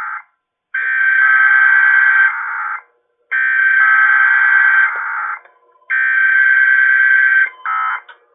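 Emergency Alert System SAME header played over a radio broadcast: three loud, buzzing stretches of digital data tones, each about two seconds long, separated by half-second gaps. They are the coded start of a required EAS test.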